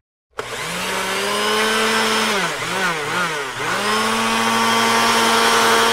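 Electric hand mixer motor switching on and whining at a steady high speed. Near the middle its pitch dips and recovers three times, as if briefly slowed, before it runs steady again.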